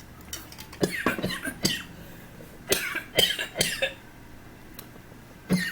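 A woman coughing in several bursts, choking because something went down the wrong pipe.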